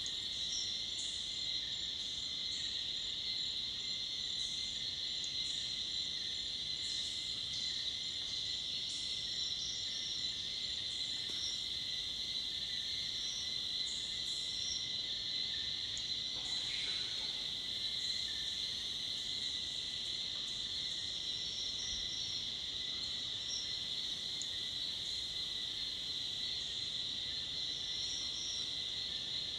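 Dusk chorus of tropical forest insects: a dense, steady high-pitched buzz that never lets up, with a fainter steady tone beneath it and short, higher chirps repeating over the top.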